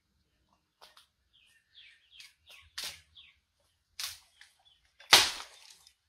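Scattered bird chirps and small ticks, then one loud, sharp crack about five seconds in.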